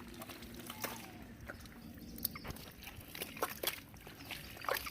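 Shallow pond water and mud being worked by hand: scattered small splashes and wet, squelching ticks, coming more often near the end.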